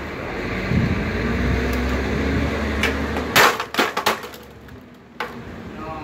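A sledgehammer strikes a broken Keurig coffee maker's plastic housing once, loudly, about halfway through, followed by a quick run of cracks as the plastic breaks up. Before the blow there is only a steady rumble.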